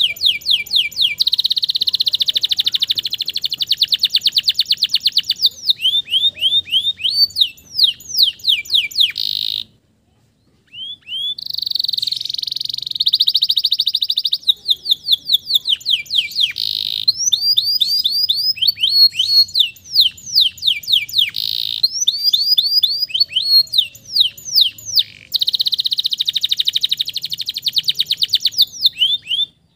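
Male domestic canary singing a long, loud song of rapid rolls and trills, with runs of quick downward-sweeping notes. There is a brief pause about ten seconds in.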